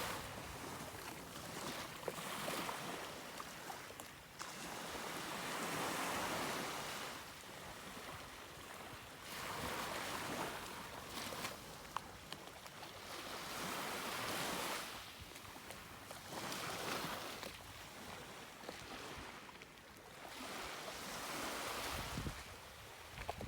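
Sea waves breaking and washing onto a beach. Each surge of surf swells and fades every three to four seconds, about six times.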